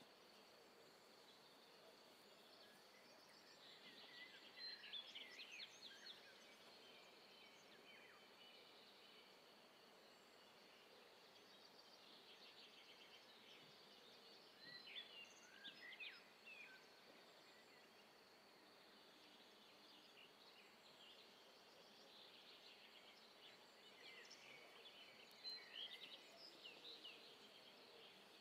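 Near-silent outdoor ambience with a faint steady high hiss, and birds chirping in three short bouts, about 5, 15 and 25 seconds in.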